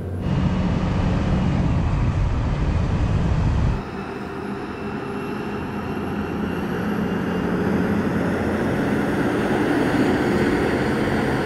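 Heavy lorry diesel engine pulling hard under a 44-ton load, heard from inside the cab for about four seconds. It then switches to an outside view of two fully loaded articulated lorries, a Scania R500 and a Mercedes Actros, accelerating, their engine noise building steadily as they draw closer.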